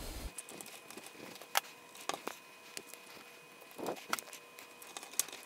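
A few faint, scattered clicks and taps of jumper wires being pressed into a solderless breadboard, over a faint steady hiss with a thin steady tone.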